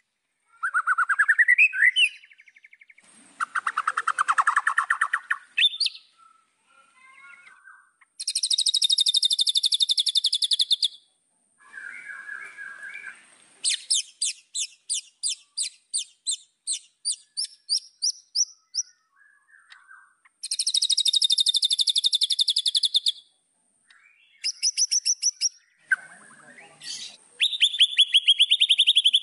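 White-rumped shama (murai batu) singing a varied song: rising whistles, long fast trills and runs of sharp repeated notes, phrase after phrase with short pauses between them.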